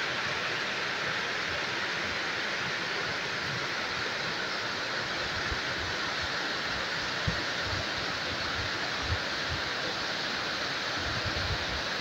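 Fast mountain river rushing steadily over a stony bed.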